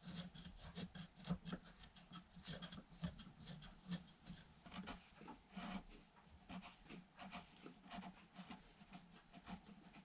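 Hand file scraping the end-grain and round recess of a small wooden clamp jaw in quick, short, irregular strokes, faint.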